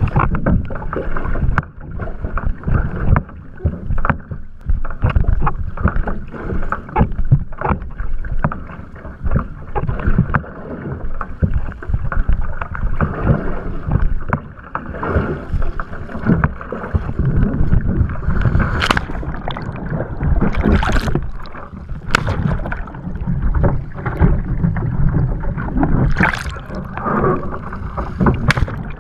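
Water splashing and rushing along the hull and outrigger of a one-person outrigger canoe paddled hard through choppy water, with irregular splashes from the paddle strokes and the chop. Several heavier splashes come in the later part, the last as the canoe rolls over and capsizes.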